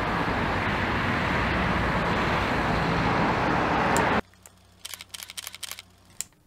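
Steady roar of traffic on a busy city road, cutting off abruptly about four seconds in. Then, over quiet, a quick run of light clicks.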